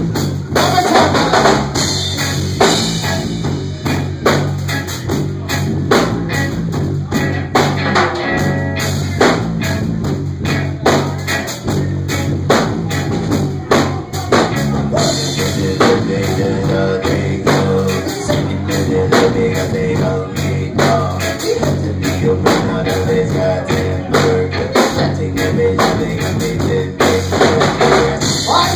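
Live reggae-rock band playing: electric guitar, electric bass and a drum kit with a steady beat.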